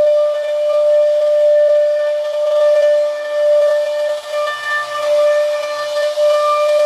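CNC router spindle whining at a steady high pitch as its cutter routes the profile of a wooden door panel, the level dipping and swelling as the cut load changes.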